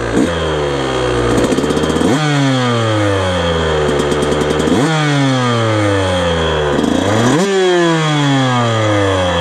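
A warmed-up 2019 KTM 125 SX two-stroke dirt bike engine with a 150cc kit and FMF exhaust, revved in four sharp jumps. After each one the revs sink away slowly.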